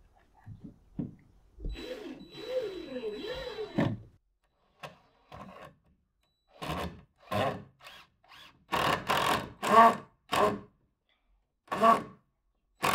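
Cordless drill driving into wooden roof-truss framing. Its motor whines for about two seconds with the pitch rising and falling as the trigger and load change, then gives a run of short bursts.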